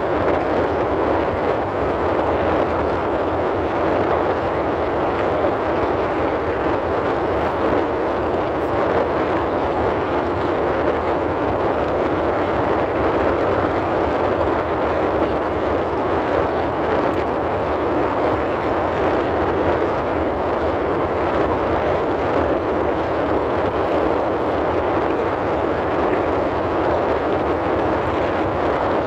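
Steady rushing air noise inside a car cabin, unchanging in level, typical of the car's ventilation fan blowing.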